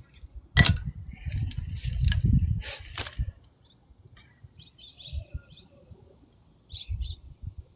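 Handling noise: a sharp click, rustling and knocking for the first three seconds, ending in another click. After that, birds chirp in short bursts.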